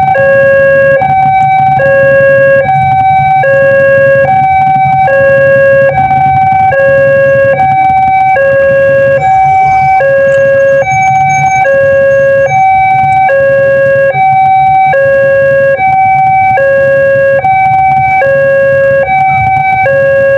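Railway level-crossing warning siren of the new Daop 2 Bandung type sounding its two-tone alarm. It switches back and forth between a higher and a lower note about every three quarters of a second, without pause.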